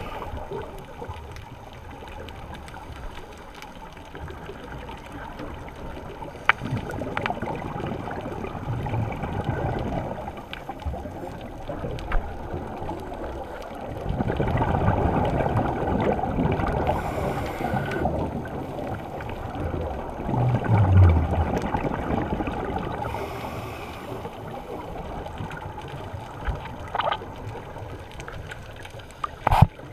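Scuba diving heard underwater through the camera: a muffled rushing and gurgling of regulator exhaust bubbles that rises and falls in long swells, with a few low thumps and sharp clicks.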